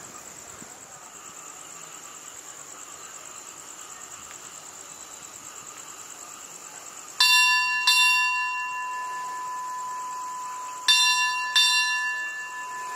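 Railway station bell struck four times in two pairs, each strike ringing on, the signal at a Thai station that a train is on its way. Crickets chirp throughout.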